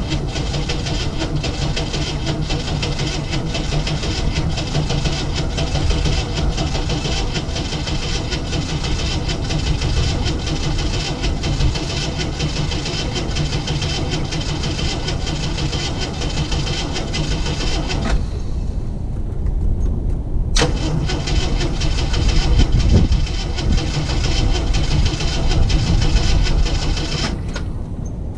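1981 Jeep CJ-7's engine running steadily just after its first start in months. A high hiss over it drops out about two-thirds of the way in, and there is one sharp click soon after.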